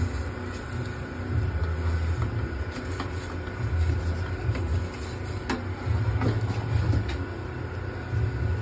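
A steady low rumble of running equipment with a faint constant whine, broken by a few light metallic clicks from a pizza peel working in the oven mouth.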